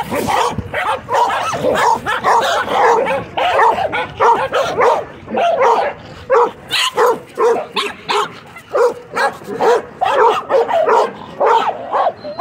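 Dogs barking, close and loud: a busy run of overlapping barks, then from about halfway a basset hound barks over and over at an even pace of about two barks a second.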